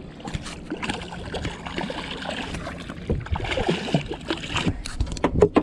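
Water splashing and gurgling as a hooked bonnethead shark thrashes at the surface beside the boat, with scattered small knocks and a pair of louder sharp knocks near the end.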